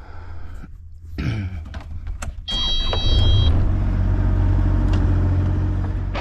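A motor vehicle's engine running as a low rumble, growing much louder about two and a half seconds in, with a short high electronic beep around three seconds in.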